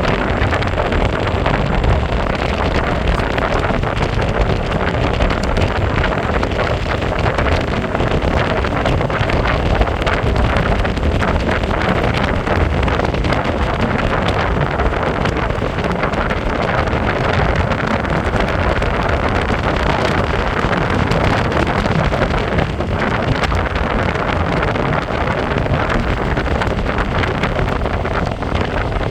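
Steady wind rushing over the microphone, mixed with the low rumble of an electric skateboard's honeycomb wheels rolling over pavement at speed.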